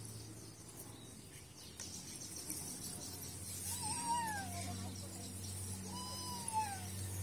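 Two drawn-out meows about two seconds apart, each rising and then falling in pitch, over a low steady hum.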